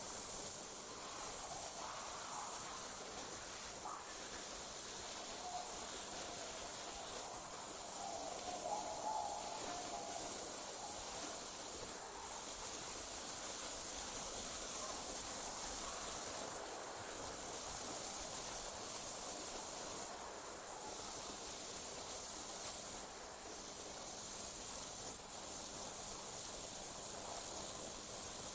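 Crickets trilling in a continuous high, even chorus, broken by brief pauses every few seconds.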